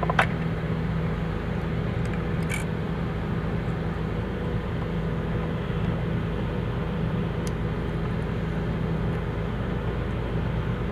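A steady low machine hum, with a few short metallic clicks of hand tools on the valve adjuster.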